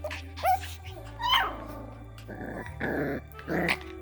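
Six-week-old Parson Russell Terrier puppies give two short yips or whimpers, then growl in the second half as they play-fight.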